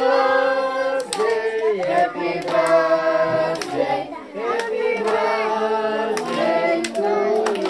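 A group, children among them, singing a birthday song together in held notes while clapping their hands along.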